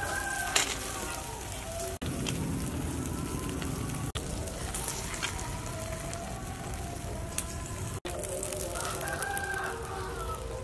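A rooster crowing, once about a second in and again near the end, over steady low background noise.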